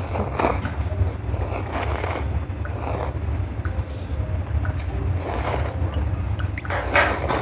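Cold buckwheat noodles being slurped from a bowl of dipping broth, about five quick slurps, over a steady low hum.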